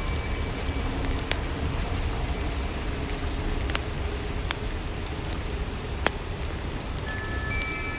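Steady rain ambience over a low rumble, with scattered sharp crackles from a wood fire about once a second.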